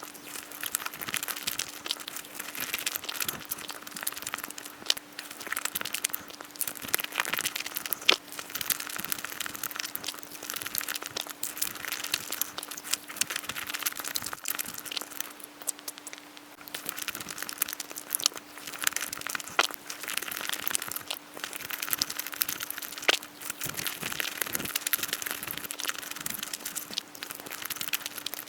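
Close-miked eating sounds, sped up: rapid, crackly chewing and wet mouth clicks coming in clusters every second or two, over a steady low hum.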